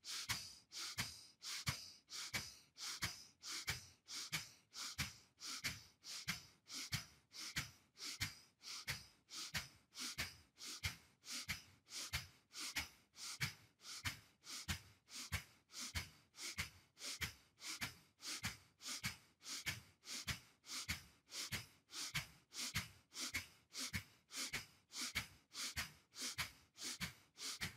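A man's rhythmic yogic breathing exercise: short, forceful exhalations through the nose, about two a second, each one a sharp puff as the belly is pulled in.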